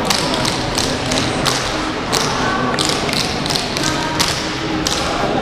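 Sharp, irregular taps on a hard sports hall floor from a line of dancers' canes and feet, several a second.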